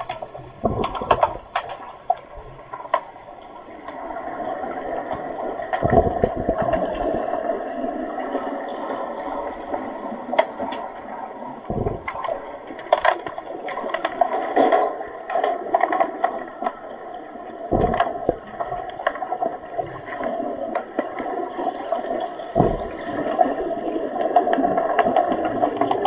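Muffled underwater pool sound heard through a submerged camera during an underwater hockey game: a steady rushing water noise with many sharp clicks and knocks, and a few low thumps.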